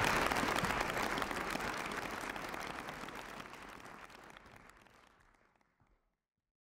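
Audience applauding, many hands clapping, fading away steadily until it is gone about six seconds in.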